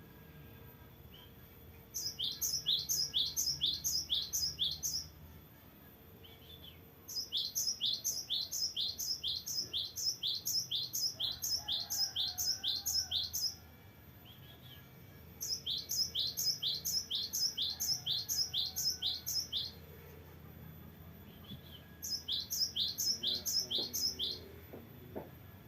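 Cinereous tit (gelatik batu) singing four long rolling phrases, each a fast, even run of about seven or eight repeated high, falling notes a second, with short pauses between.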